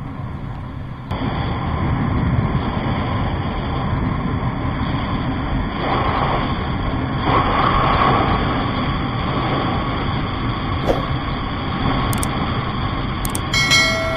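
Bajaj Pulsar NS200 motorcycle riding at highway speed: engine running steadily under heavy wind and road noise, picked up by an action camera. A short pitched tone sounds near the end.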